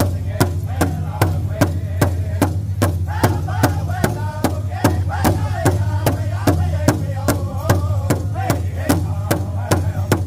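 Powwow drum group singing together in high voices over a large shared drum struck in unison with a steady, even beat of about two and a half strokes a second.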